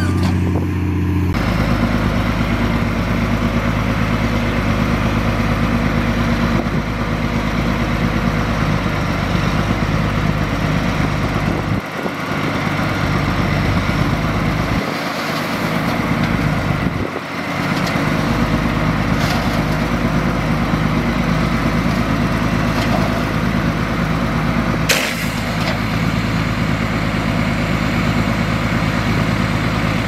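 Heavy diesel engine of earthmoving machinery running steadily, with brief dips a few times and a single sharp click near the end.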